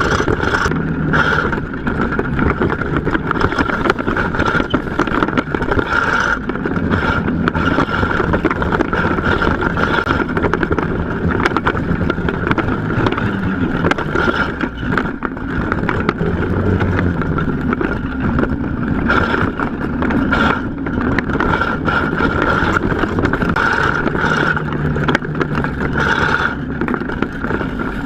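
Small buggy engine running as the buggy drives, its pitch shifting up and down with the throttle.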